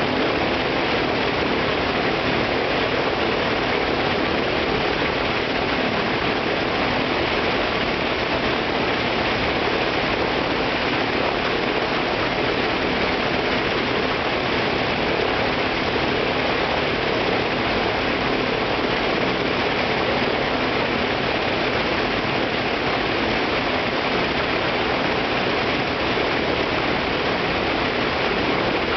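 Shvetsov ASh-82T fourteen-cylinder radial piston engine of an Ilyushin Il-14T running steadily on a ground run, heard close up with the propeller turning; the engine speed holds even throughout.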